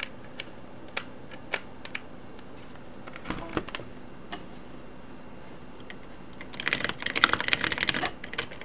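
A few separate clicks and knocks, then about six and a half seconds in, fast typing on a mechanical keyboard fitted partly with zinc and aluminium metal keycaps.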